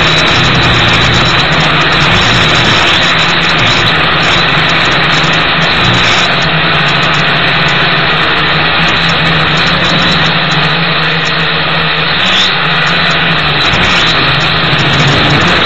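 Toy quadcopter's four motors and propellers buzzing steadily in flight, heard loud and close through the drone's own onboard camera microphone, the pitch wavering slightly as the motors adjust.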